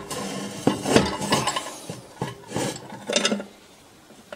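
A metal jar rack loaded with glass jars being lowered into a steel home autoclave, clanking and scraping against the pot: a run of knocks and rubs over the first three seconds or so, then it goes quiet as the rack settles.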